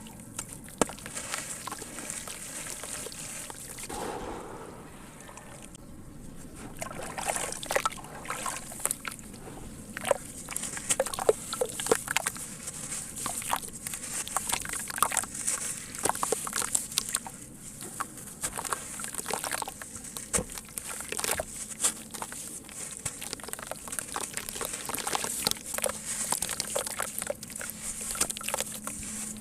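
Sand cement crumbling in water: a steady fizzing hiss with many small, irregular crackles and clicks.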